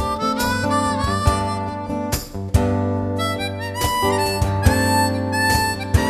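Instrumental break in a blues-tinged song: harmonica playing the lead over guitar accompaniment, with a sharp percussion hit every second or so.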